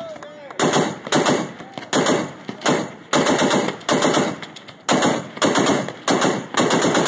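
Heavy gunfire: a steady run of single loud shots, about two a second, each a sharp report followed by a short echo.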